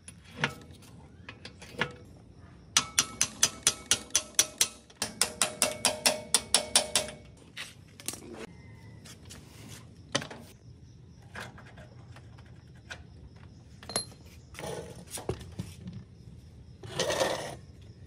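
A quick run of about fifteen ringing metallic strikes over some four seconds, speeding up in the second half. Scattered single knocks follow, and a short burst of hissing comes near the end.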